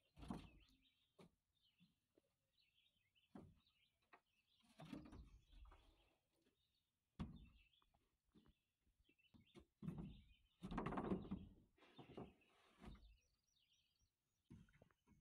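Faint, scattered knocks and scraping as a long rough-sawn board is handled and set against the cabin's eave, the longest scrape about ten seconds in, with birds chirping.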